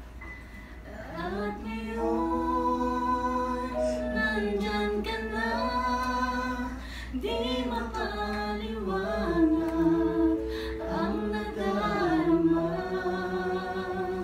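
Singing of a slow Tagalog love song with long held notes, over music.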